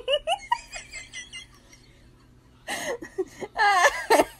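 A person laughing: quick giggles at first, then after a short lull a louder laugh that wavers in pitch near the end.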